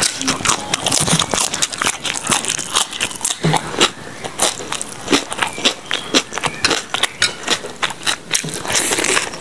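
Close-miked eating: a rapid, irregular run of crunches and wet mouth clicks as raw vegetables are chewed, with a louder crunch near the end as crispy fried chicken is bitten into.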